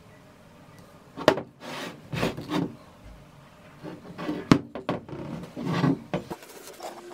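A 15 kg metal anvil being tipped and turned over on a wooden bench top: scraping and shuffling as it slides on the wood, with two sharp knocks, one about a second in and a louder one about four and a half seconds in.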